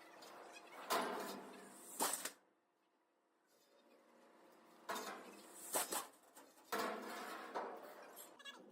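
Metal clanking: a series of sharp knocks and clangs of steel being handled, with a short hush between the first pair and the later group.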